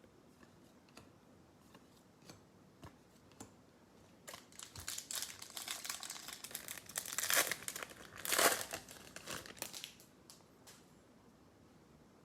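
Trading card pack wrapper being torn open and crinkled, with the loudest tearing about seven and a half and eight and a half seconds in, after a few seconds of scattered light clicks.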